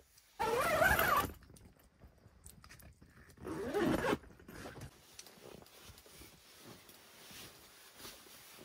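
Sleeping-bag zipper pulled twice, each pull about a second long and a little over two seconds apart, its pitch rising and falling as it runs; faint fabric rustling follows.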